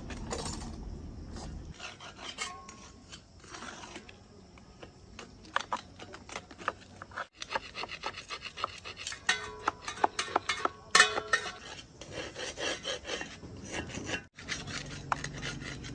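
Hand work on metal parts: irregular scraping and filing strokes mixed with sharp clicks, and a run of ringing metal taps about two-thirds of the way through.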